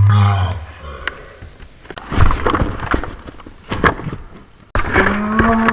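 A loud low boom right at the start, then sharp hard taps and knocks with paper rustling as a plastic toy horse figure is moved about in shredded paper. Near the end comes a drawn-out yell that falls in pitch.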